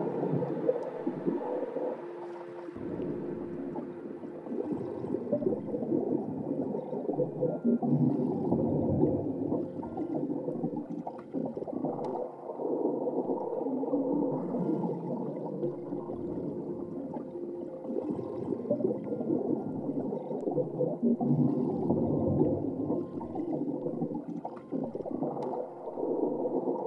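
Muffled underwater soundscape: a low, churning gurgle with a few faint held tones drifting through it.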